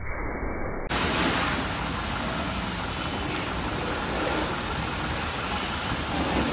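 High-pressure washer jet hissing steadily as it sprays water onto a car's body to rinse off foam, starting abruptly about a second in.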